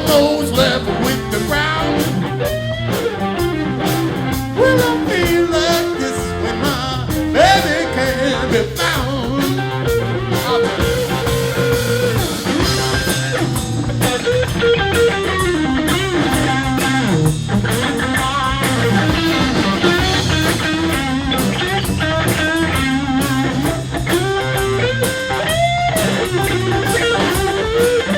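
A blues band playing loud, steady music, led by an electric guitar with notes bending up and down over the bass and drums.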